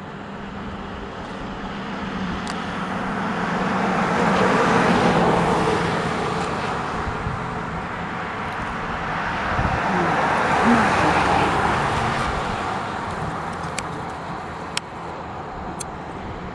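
Two road vehicles passing by one after the other, their tyre and engine noise swelling and fading, loudest about five and eleven seconds in.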